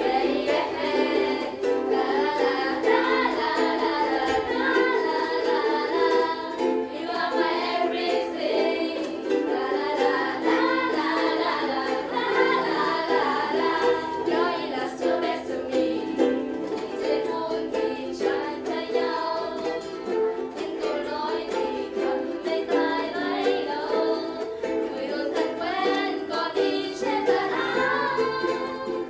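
Ukuleles playing a lively tune, strummed quickly and steadily with a melody moving over the chords.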